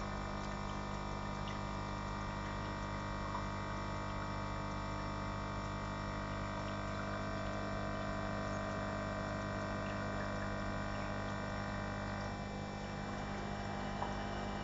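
Aquarium filter pump running with a steady electrical hum and water moving.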